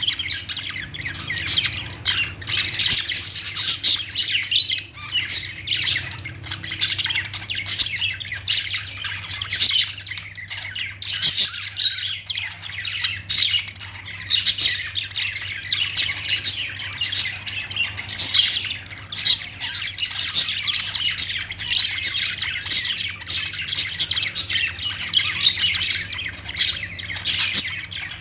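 Pet budgerigars chirping and chattering, a dense, unbroken stream of quick overlapping high-pitched calls.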